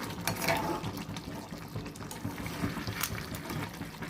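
Crab and gongura curry gravy bubbling as it simmers in the pan, with many small irregular blips. A couple of light clicks come near the start and about three seconds in.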